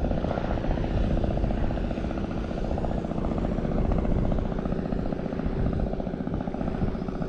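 A steady motor drone with a fast, even pulse and a few held tones, running without a break.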